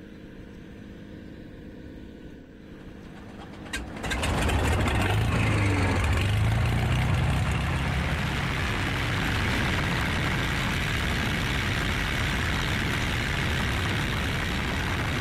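Light single-engine propeller plane heard from inside the cabin. After about four seconds of faint steady background hum, the engine and propeller noise comes in suddenly and loud, with a deep hum, and then runs steadily.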